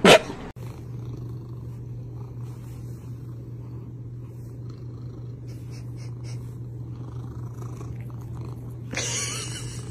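Domestic cat purring: a steady low rumble. It follows a brief loud sliding cry at the very start, and a short noisy burst comes about a second before the end.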